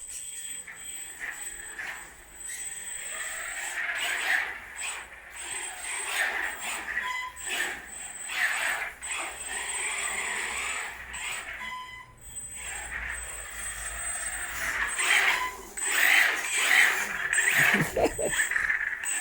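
3D-printed Tarmo4 RC car driving: a steady high-pitched whine with a noisy scrubbing that swells and fades, loudest near the end, where a brief low sliding sound also comes in.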